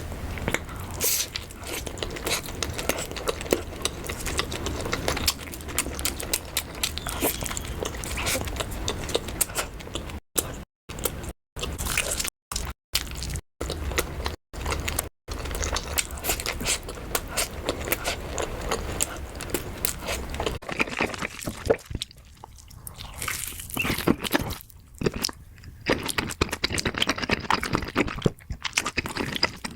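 Close-miked eating: chewing and biting with crunching and wet mouth clicks, typical of mukbang. The sound drops out to dead silence several times for a moment between about ten and fifteen seconds in.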